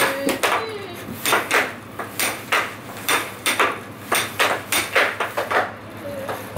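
Air hockey rally on a home-made wooden table: a plastic puck clacks against the mallets and the wooden rails in a fast, irregular string of sharp knocks. Under them runs a low steady hum from the table's air blower.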